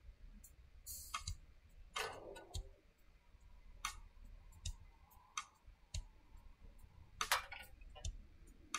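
Faint, irregular clicks and taps, some with a soft low thud, with a few short hissy bursts about one, two and seven seconds in.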